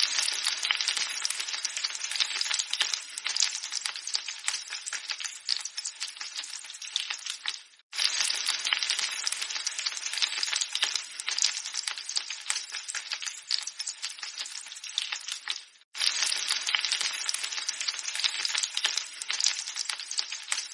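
An egg frying in hot oil: a steady sizzle thick with tiny crackling pops. The sizzle cuts out for a moment twice, about eight seconds apart, then picks up again.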